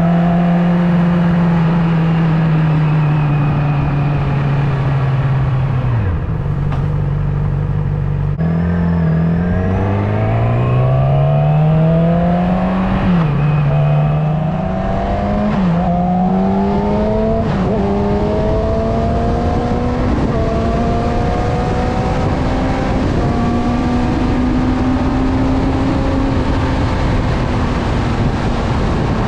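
Motorcycle engine under way: it eases off about six seconds in, then pulls hard through three or four upshifts, its pitch climbing and dropping at each change, and settles to a steadier, slowly rising cruise over wind noise.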